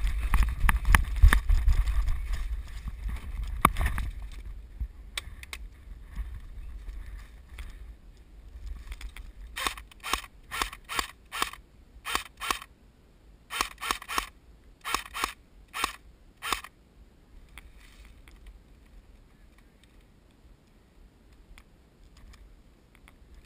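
Airsoft rifle firing about twenty rapid single shots in two strings, each a sharp mechanical crack, over roughly six seconds in the middle of the stretch. Before that, wind and handling noise rumble on the microphone.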